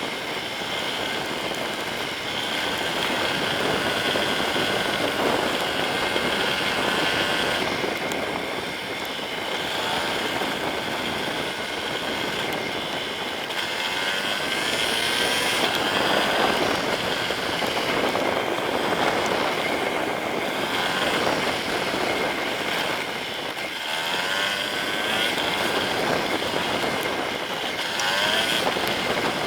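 Yamaha Serow 250's air-cooled single-cylinder engine running under way, its revs rising and falling, over a steady rush of noise.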